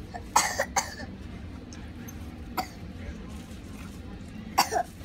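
A young child coughing: a short double cough about half a second in and another near the end. A single light knock comes midway, over a steady low hum.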